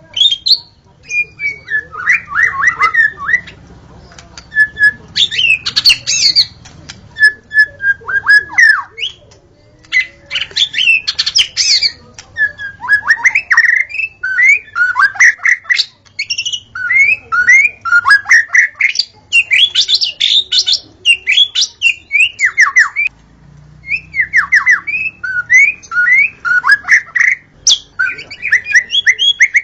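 White-rumped shama singing: phrase after phrase of quick whistled and falling notes, with short breaks between phrases.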